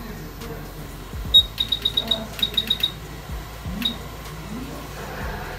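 Short, high electronic beeps from a piece of bench electronics: one beep, then a quick run of about ten, then a single beep a second later, like buttons being pressed on an instrument. A steady low hum runs underneath.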